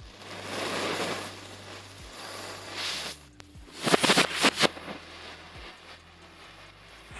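Firework fountain spraying sparks with a rushing hiss for about three seconds, then a rapid string of about six sharp cracks from bijli firecrackers bursting about four seconds in, followed by a fainter hiss as the row of matchsticks burns.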